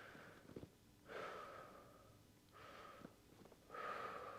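Faint, slow, big deep breaths from a person lying in a stretch. There are three long breath sounds, each about half a second to over a second long, starting about a second in, near the middle and near the end.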